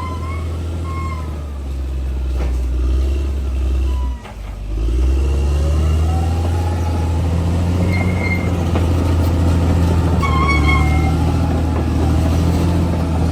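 Bulldozer's diesel engine running steadily under load. About four seconds in it drops off briefly, then revs back up with a rising whine, with a few short high squeals later on.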